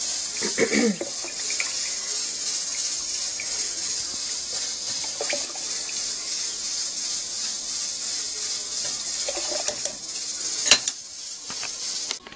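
Beef broth trickling steadily through a fine-mesh sieve into a glass quart jar, with a sharp clink near the end.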